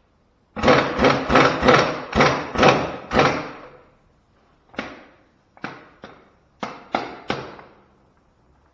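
Pneumatic impact wrench hammering in short trigger bursts on the wheel nuts of a truck's Dayton front wheel, breaking the nuts loose. A quick run of about eight bursts comes first, then after a pause six shorter ones in two groups.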